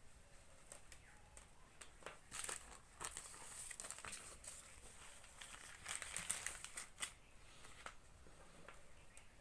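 Packaging crinkling and rustling, with scattered small clicks, as a mobile phone microphone is unpacked and handled; the rustle comes in two louder spells, about two seconds in and again about six seconds in.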